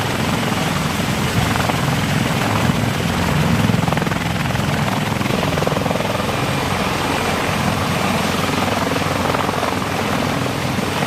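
CH-53 heavy-lift helicopter running steadily and loudly, with a rapid, even rotor beat under the rush of its engines.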